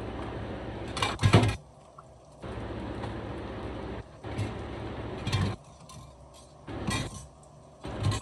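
Dishes, pots and utensils clattering during kitchen handling, with about four sharp, louder knocks over a hiss that cuts in and out.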